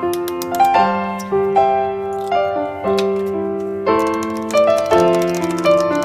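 Background piano music: a melody of struck notes over chords, each note fading after it is struck.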